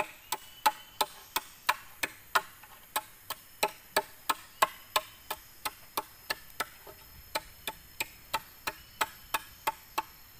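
Machete blade chopping into the end of a hollow green bamboo pole: about three sharp, ringing knocks a second, at an even pace, stopping near the end.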